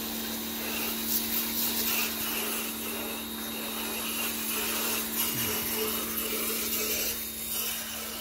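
Electric pressure washer running steadily, its motor humming under the hiss of the water jet spraying the house siding.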